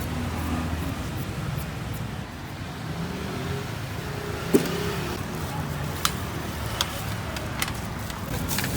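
Street traffic running steadily, with a few sharp clicks or knocks spread through the second half, the loudest about halfway through.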